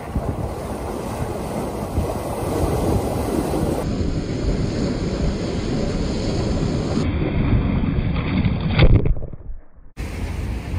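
Sea waves surging and breaking over rocks right at the microphone, with wind buffeting it. The sound turns more muffled in two steps as the camera is splashed with seawater; a loud surge comes about nine seconds in, then dies away for a moment before the rush of surf returns.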